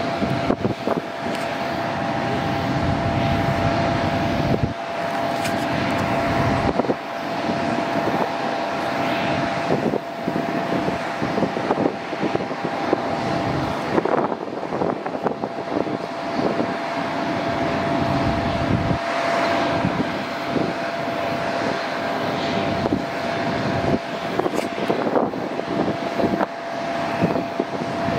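Airbus A330-900's two Rolls-Royce Trent 7000 turbofans at climb thrust, heard from the ground as the airliner climbs away after takeoff: a dense jet rumble that rises and dips unevenly, with one steady pitched tone held in it.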